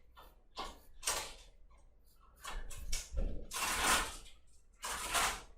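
Drawing strokes scratching across paper while shading a sketch: a run of short scratchy strokes, then longer, louder ones in the middle and a last stroke near the end.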